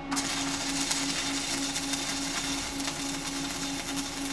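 Stick-welding arc from a Vulcan 460-AP all-position mild-steel electrode, struck just after the start and then burning with a steady crackling hiss and frequent sharp pops. The current is set a little on the hot side.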